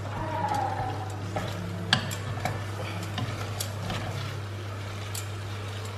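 Wooden spoon stirring and tossing pasta in a thick sauce in a stainless steel saucepan: soft wet stirring with a few sharp clicks of the spoon against the pot, over a steady low hum.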